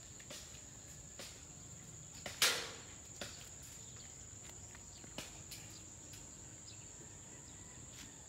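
Steady high-pitched drone of insects in the grass, with a few faint clicks and one brief louder rustle about two and a half seconds in.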